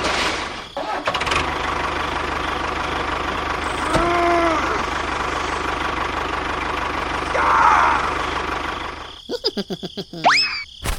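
A small motor running steadily with a fast low pulse. It stops about nine seconds in, and a few clicks and quick rising whistles follow.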